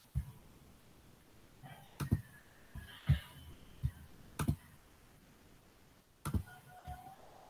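Scattered sharp clicks and low knocks, about ten in all, some in quick pairs, typical of a computer mouse being clicked and handled on a desk. Faint brief tones come between them about two seconds in and again near the end.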